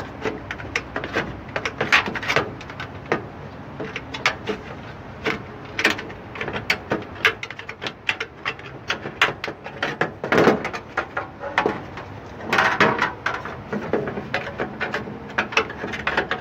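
Metal-cutting shears cutting a thin aluminium sheet: a run of short crunching snips, with louder bunches of cuts about ten seconds in and again about thirteen seconds in.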